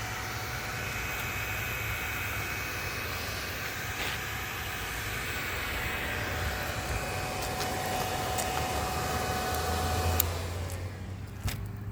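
Kawasaki ZX-4RR radiator cooling fan running with a steady whir over a low hum. About ten seconds in it shuts off and winds down, its whine falling in pitch.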